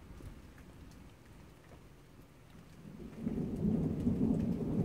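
Faint rain with scattered drips, then a low rumble of thunder sets in about three seconds in and keeps growing louder.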